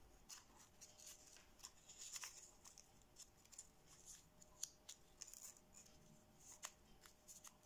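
Faint crinkling and crackling of thin kami paper as it is creased and tucked between the fingers, with many small scattered clicks and short rustles.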